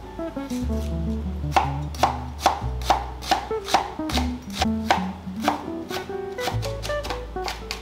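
Chef's knife chopping an onion on a cutting board: irregular sharp knife strikes on the board, coming quicker near the end as the onion is diced. Background music plays underneath.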